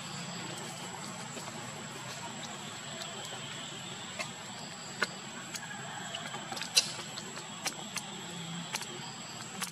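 Steady background hum and hiss with a thin, high, steady whine, broken by scattered sharp clicks and ticks from about four seconds in.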